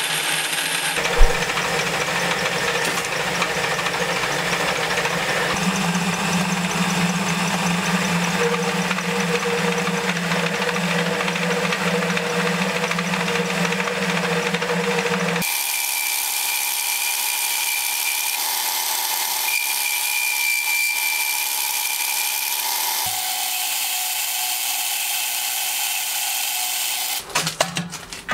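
Belt-driven metal lathe running while turning steel round stock, a steady machine sound that shifts in tone a few times. There is a sharp knock about a second in. Near the end the steady running drops away into a clatter of knocks as the drive belt is handled on the headstock pulleys.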